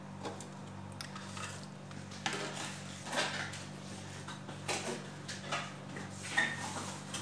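Scattered clinks and knocks of kitchenware, pots, dishes and utensils being handled, at irregular intervals over a steady low hum.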